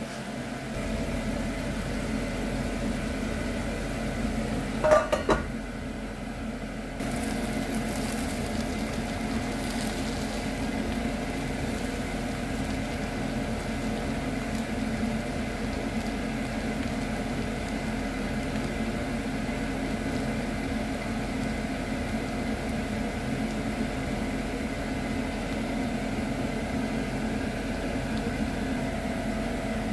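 Rice and meat simmering and sizzling in a pan on a gas hob over a steady mechanical hum, with two short knocks of a spatula against the pan about five seconds in.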